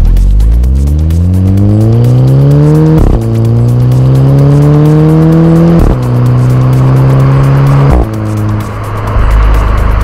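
Exhaust of a Volkswagen Scirocco 2.0 TSI's turbocharged four-cylinder through an aftermarket Remus rear silencer, heard close at the tailpipes, under hard acceleration. The note climbs steadily, breaks briefly at two quick DSG upshifts about three and six seconds in and climbs again from a lower pitch, then falls away near the end as the throttle lifts. There is wind rush over it throughout.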